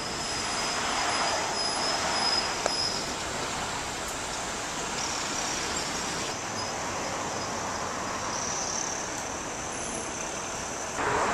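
Street traffic noise: a steady wash of passing vehicles, swelling about one to three seconds in as a vehicle goes by. A faint high whine sounds over it during the first few seconds.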